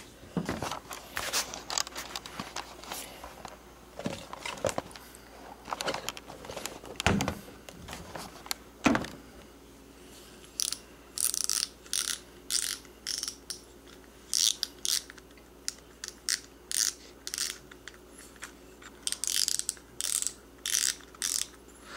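Wright & McGill Sabalos SAB6000 spinning reel being partly taken apart by hand. First come irregular small metal clicks and knocks, with two louder knocks. Then a run of short scraping strokes, about two a second, with a pause partway through.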